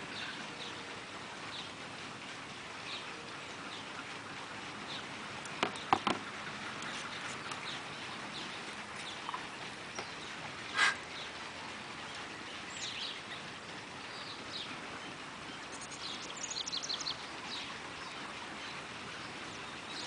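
Birds chirping and calling over a faint steady background, with a louder call about eleven seconds in and a quick run of chirps near the end. Two sharp knocks sound about six seconds in.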